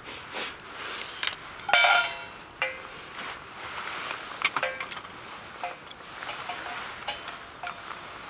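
Metal utensils and camp cookware clinking and scraping, a string of sharp clinks, some with a short metallic ring, over a light steady hiss.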